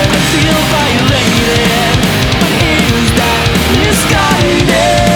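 Fast melodic punk rock played by a full band: a lead line bending and sliding through notes over bass and drums, settling on a long held note near the end.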